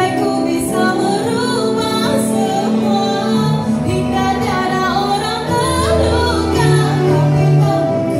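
Female vocal duet singing into handheld microphones over instrumental accompaniment, the voices wavering and gliding over steady held chords.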